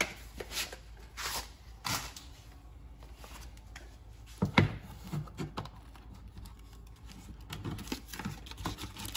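Scattered clicks, taps and light knocks of tools and metal stock being handled on a workbench while a part is checked with calipers, with one louder knock about four and a half seconds in.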